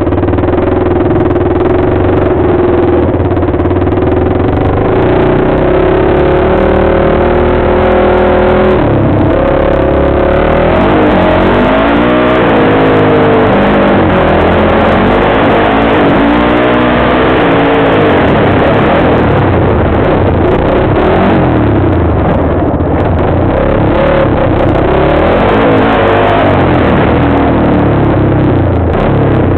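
Dirt bike engine running hard, heard from the rider's helmet. The revs climb steadily at first, then rise and fall again and again as the throttle and gears change.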